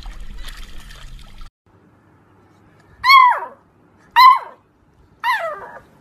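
Beagle puppy giving three short yelping howls about a second apart, each sliding down in pitch. Before them, for about the first second and a half, water splashes around a small dog swimming.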